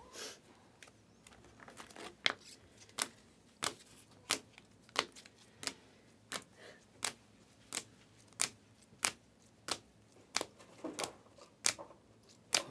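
Panini Prizm basketball cards dealt off a stack one at a time, each card giving a sharp snap as it comes off, about one every two-thirds of a second.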